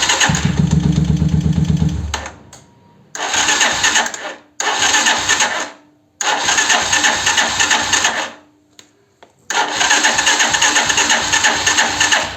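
Electric starter cranking a 125Z motorcycle's single-cylinder engine in five bursts; the first is about two seconds long with a heavier low rumble, and the engine does not stay running. It makes a crack on starting ("tronido") that the owner suspects comes from a worn Bendix starter drive.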